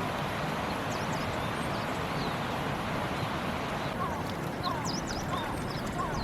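Steady rush of flowing water, with small birds chirping over it; from about four seconds in, a short falling call repeats about every 0.7 seconds.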